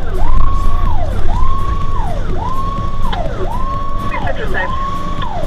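Fire engine siren sounding on a call-out, each cycle rising quickly to a held high note and then falling, repeating about once a second, over the truck's engine and road rumble, heard from inside the cab.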